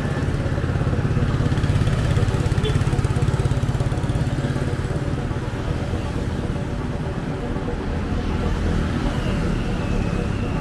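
Road traffic with a vehicle engine running close by, loudest about two to three seconds in, then a steady traffic rumble.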